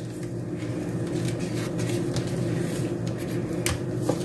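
A steady low hum of a running appliance or motor in the room, with a few faint clicks near the end.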